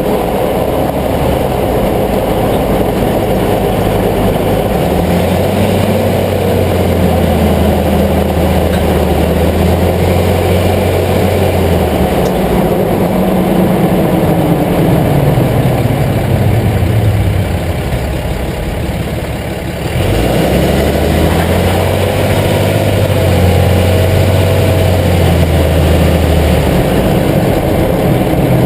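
Vehicle engine running under load: it climbs and holds a steady pitch for several seconds, then falls away and goes quieter. About two-thirds of the way through it changes abruptly, then climbs and holds again.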